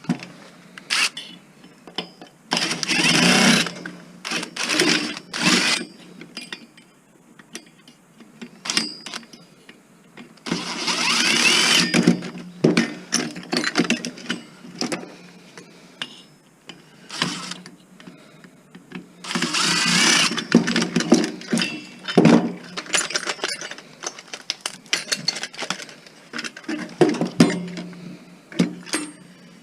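Cordless drill-driver running in short bursts, its pitch rising and falling, three longer runs among several shorter ones, backing screws out of a stereo's casing. Between the bursts, sharp clicks and clatter of screws and metal and plastic parts being handled.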